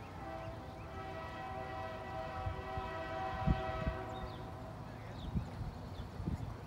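Locomotive horn of an approaching diesel freight train, most likely lead unit NS 9908, a GE Dash 9-44CW, sounding one long steady chord that fades out a little past halfway. A few low thumps and faint bird chirps come in its second half.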